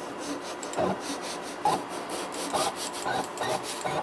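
Sheet of paper dragged back and forth between a delta 3D printer's nozzle and its bed, scraping in short irregular strokes: a paper-gauge check of the nozzle height while levelling the printer.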